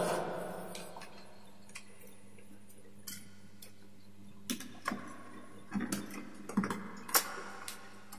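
Scattered light clicks and rustles of insulated electrical wires being handled and pushed through a PVC conduit junction box, about a dozen small irregular ticks, busier in the second half.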